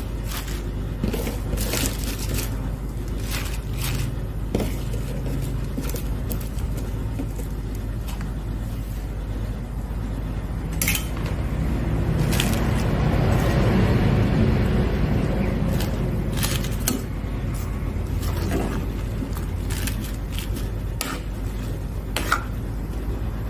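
Fresh cabbage leaves rustling and crunching as they are pushed into an aluminium soup pot, with sharp clicks and clinks of a metal ladle against the pot as the cabbage is stirred into the boiling broth. A steady low hum runs underneath, and a hiss swells for a few seconds midway.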